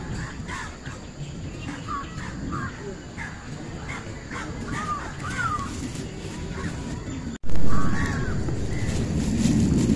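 Repeated short, arched animal calls, several a second, over a low outdoor rumble. About seven and a half seconds in, the sound drops out for an instant, then a loud thump and close, louder rustling follow, with a couple more calls.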